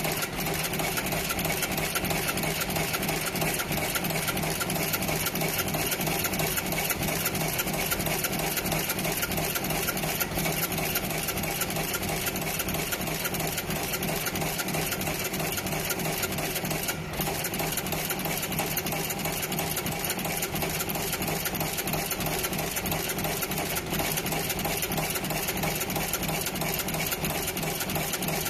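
Radial insertion machine running, its head cycling rapidly as it inserts LEDs from a taped feed into a circuit board: a fast, even mechanical clatter.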